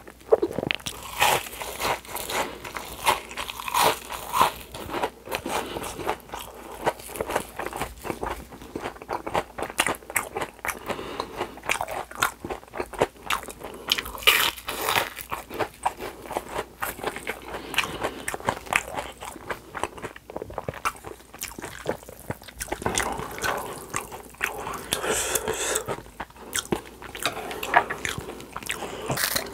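Crunching and chewing of a deep-fried, panko-breaded shrimp: a dense, irregular run of crisp crackles from the fried coating as it is bitten and chewed.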